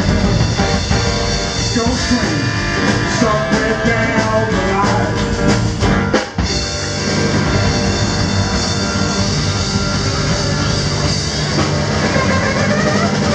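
Live rock and roll band playing, with stage piano, saxophones, upright bass, drums and a male singer. The band stops short for a moment about six seconds in, then plays on.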